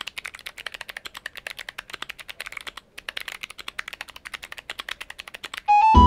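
Fast typing on a clicky mechanical keyboard with Kailh Box White v2 switches: a rapid run of sharp clicks, many keystrokes a second. There is a short pause about three seconds in, and the typing stops just before the end.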